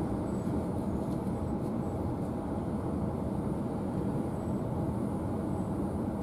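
Passenger train running at speed, a steady rumble of wheels on track heard from inside the carriage.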